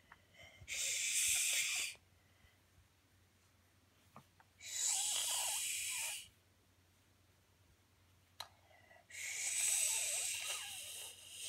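A young child saying the phonic sound "sh" as a long, drawn-out hiss, three times with pauses between.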